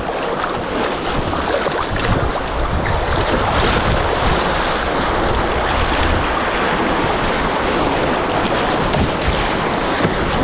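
River rapids rushing and splashing around a canoe as it runs a chute of standing waves, with wind rumbling on the microphone.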